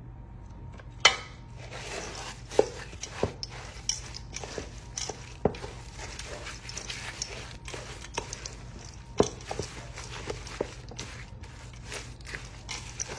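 Spoon stirring a thick mix of shredded hash browns, soup and cheese in a stainless steel mixing bowl: irregular knocks and scrapes of the utensil against the metal bowl, the loudest about a second in, over a steady low hum.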